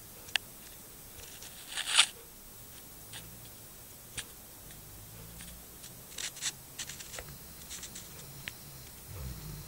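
A sleeping Rhodesian ridgeback's faint, low snoring breaths, broken by scattered sharp clicks and a short crackling rustle about two seconds in, with a cluster of clicks further on.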